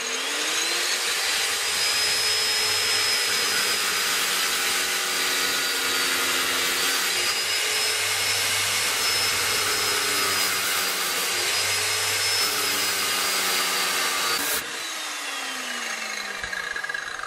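Large electric disc cutter (angle grinder) with a soft start, winding up to speed and then cutting through the steel rear chassis rail of a Land Rover Discovery 2, its pitch sagging slightly a couple of times as the disc bites. About 14.5 seconds in the trigger is released and the motor winds down with a falling whine.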